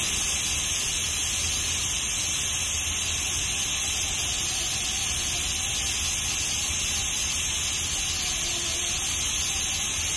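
TIG welding arc on a large stainless steel pipe joint, a steady hiss with no breaks as the weld bead is laid and filler rod is fed by hand.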